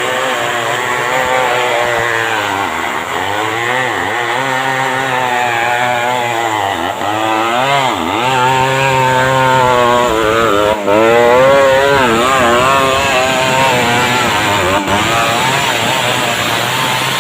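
Stihl 070 two-stroke chainsaw running hard while ripping timber lengthwise into boards. Its pitch keeps sagging and picking back up as the chain loads in the cut.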